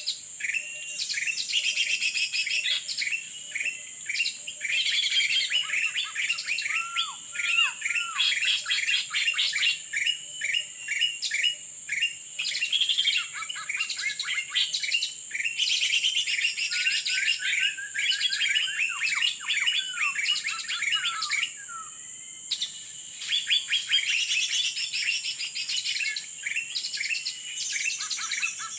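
Birds chirping and calling in dense, rapid, overlapping runs of short sliding notes, briefly easing about three quarters of the way through, over a steady high-pitched hum.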